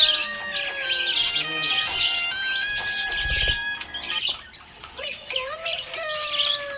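Budgerigars chirping in quick repeated clusters, over background music with long held notes.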